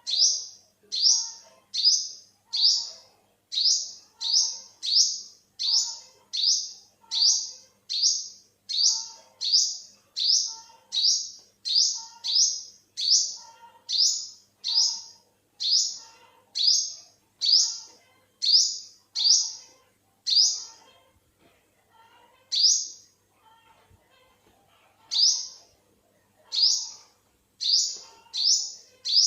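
Olive-backed sunbird calling: a long run of short, sharp, high-pitched rising chirps, about three every two seconds. The run breaks off for a few seconds with a single call a bit past two-thirds through, then picks up again.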